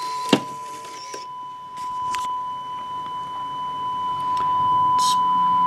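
Steady, unwavering test tone from a Sony Betacam SP camcorder's audio, the tone recorded onto tape and being played back as a check of the machine's sound. A sharp click sounds about a third of a second in.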